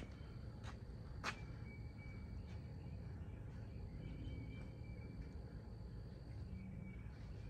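Quiet outdoor ambience: a steady high-pitched insect call that breaks off twice, over a low rumble. A few sharp clicks come in the first second and a half.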